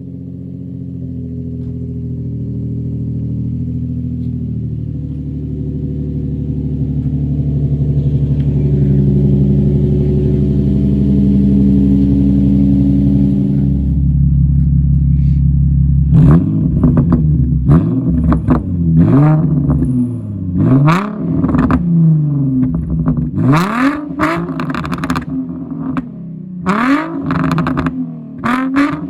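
Infiniti G35's VQ 3.5-litre V6 running through Z1 test pipes with the catalytic converters deleted: a steady, loud drone that swells over the first half, then a series of quick revs, the pitch shooting up and dropping back again and again, with sharp crackles in the exhaust.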